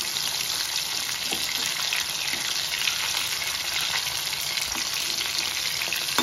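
Pieces of dried salted ribbon fish sizzling steadily in shallow oil over a medium flame, with a few light clicks as a metal spatula turns them.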